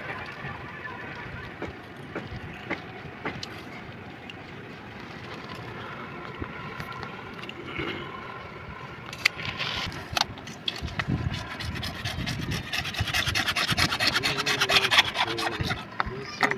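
Hand work on CPVC pipe: light handling clicks and scrapes at first, then, from about twelve seconds in, fast rhythmic scraping strokes that grow louder and stop near the end.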